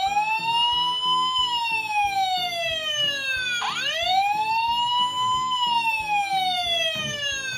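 Electronic wailing siren of a battery-powered Tonka toy fire engine, sounding as a button is pressed. It goes through two slow wails, each rising quickly then falling slowly, and stops near the end.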